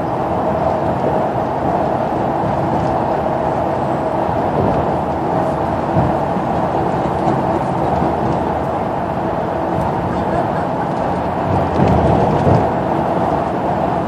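Cabin noise inside a moving intercity coach: steady engine and road noise with a constant hum, and a brief louder rumble about twelve seconds in.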